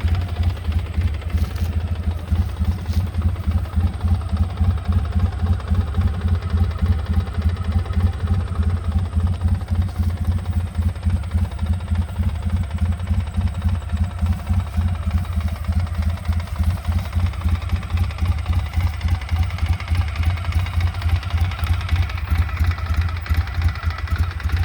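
2003 Polaris Sportsman 600 Twin ATV's twin-cylinder engine idling steadily with a fast, regular knock; the owner asks whether this loud knocking is normal.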